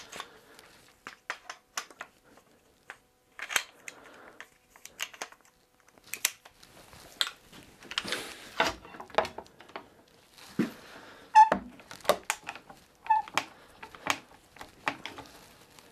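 Quick-Grip one-handed bar clamps clicking and knocking as they are handled, set across a freshly glued chair back and squeezed tight, in irregular clicks with quiet gaps between. Two brief squeaks come near the end.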